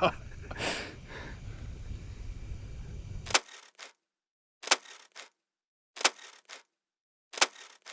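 Camera shutter clicks for photos: four sharp double clicks about a second and a half apart, each a loud click followed by a softer one, against dead silence. Before them, about three seconds of faint steady background hiss that cuts off abruptly.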